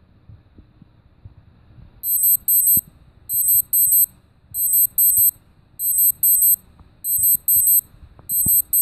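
Timex Ironman Sleek 50 digital watch sounding its timer alarm as the countdown hits zero: high-pitched electronic beeping that starts about two seconds in, in quick pairs of beep bursts repeating about every 1.3 seconds.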